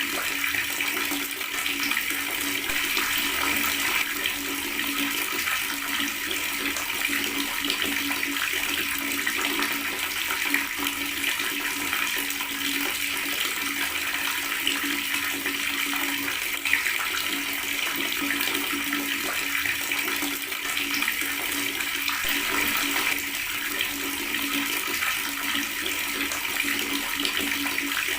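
Water running steadily from a tap, an even splashing gurgle with no pauses, over a faint steady low hum.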